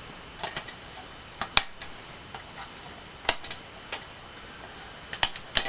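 Irregular sharp clicks and taps, about seven, from small hard parts of an Xbox 360 being worked loose and handled by hand during disassembly.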